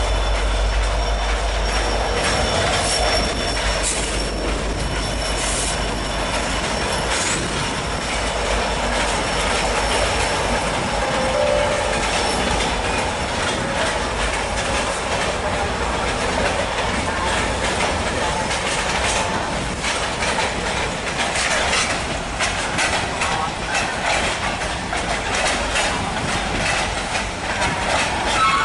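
Train cars rolling past, a steady rumble with the wheels clicking over rail joints. A thin, high wheel squeal sounds in the first few seconds.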